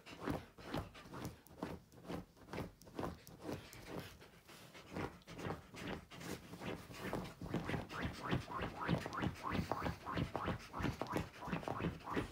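Wolf dog digging and pawing at a fleece blanket on a bed, a fast run of scratching strokes at about four a second that grows louder in the second half.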